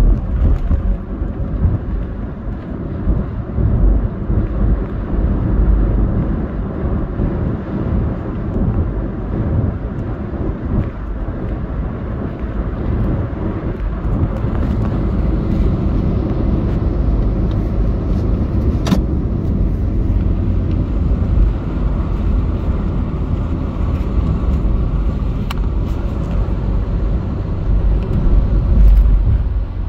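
Steady rumble of a car driving at road speed, heard from inside the cabin: tyre and engine noise, with a couple of brief sharp clicks about two-thirds of the way through.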